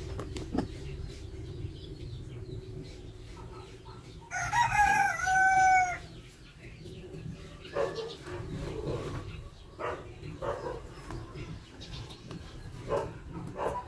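A rooster crows once, about four seconds in: one loud call lasting under two seconds. Faint clicks and a low steady hum run beneath it.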